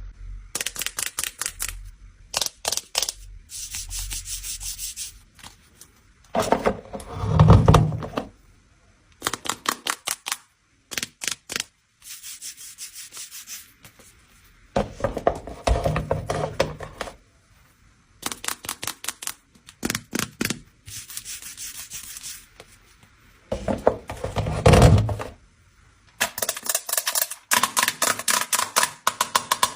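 Close-miked ASMR sounds: runs of rapid clicks and taps alternating with stretches of scraping and rubbing, and two louder, deeper thuds, one about a quarter of the way in and one near the end.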